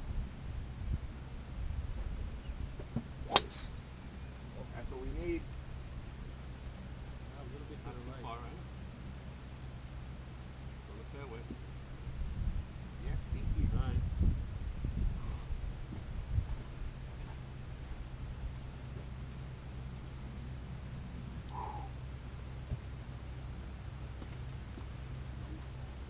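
Steady high-pitched drone of insects, with one sharp crack of a golf club striking a teed ball about three seconds in.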